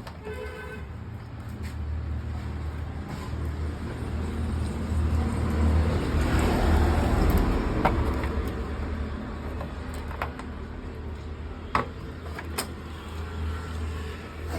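Motor vehicle engine noise over a steady low hum, swelling to a peak about halfway through and fading again, with a few sharp clicks later on.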